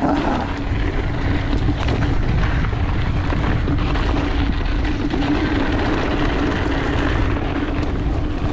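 Mountain bike riding down a dirt trail: wind rushing over the camera microphone and tyres rolling on the dirt, with a steady hum throughout.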